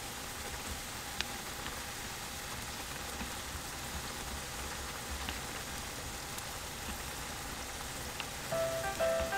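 Kimchi broth with spaghetti boiling in a frying pan: a steady crackling, bubbling hiss. Light music comes in near the end.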